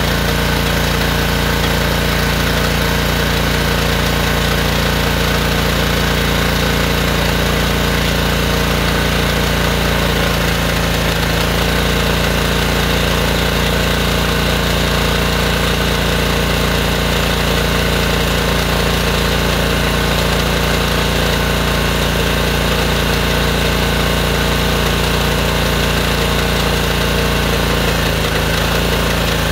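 A gas pressure washer's Honda engine runs steadily, driving a hydro jetter that is pushing high-pressure water through a clogged drain line.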